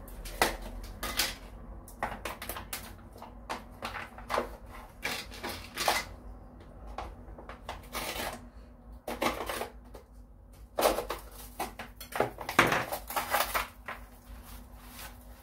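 Kitchen handling noise as chives go onto the dough: irregular clicks and taps with short rustling bursts every second or two, the densest for about a second at a time.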